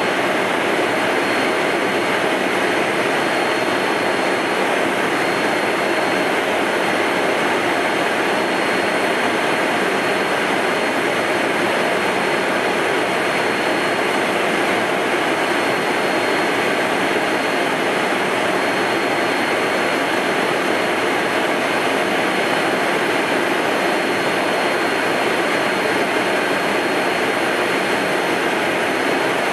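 Steady cockpit noise of an Embraer Phenom 100 light jet in its climb: the twin Pratt & Whitney PW617F turbofans running under a constant rush of air, with a faint high whine held steady throughout.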